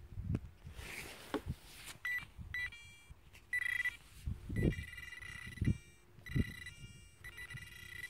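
Handheld metal-detecting pinpointer probed into the soil of a dug hole, giving a steady high electronic tone that switches on and off, in brief beeps at first and longer stretches later: its signal that buried metal is near the tip. Dull thuds of the probe and hand working the soil come in between.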